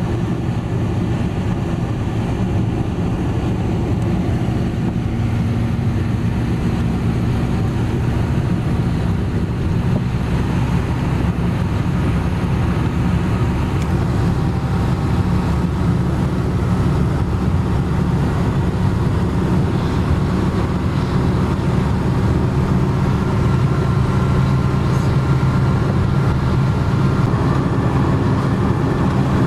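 Steady low rumble of a car driving at road speed, heard from inside the cabin: tyre and engine noise with no sharp events.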